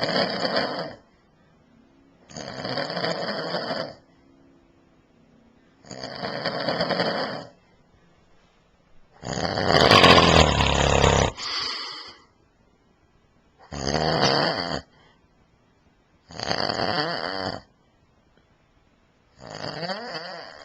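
A man snoring in his sleep: seven snores a few seconds apart, each lasting about a second. The one about nine seconds in is the loudest and longest.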